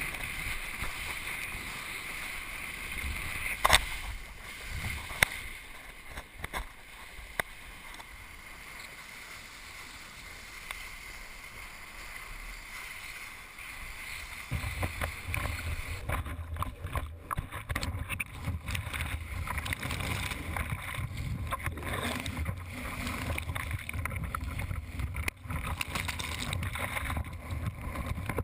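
Wind buffeting an action camera's microphone over the rush of a kitesurf board skimming the water, with a few sharp knocks in the first few seconds. About halfway through it turns louder and rougher, a low rumble with splashing.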